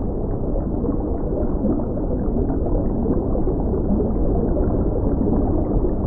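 Steady, muffled bubbling and gurgling of pond water.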